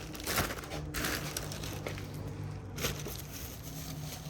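Hands handling truck door-handle parts: scattered light clicks and knocks with some rustling, over a steady low hum.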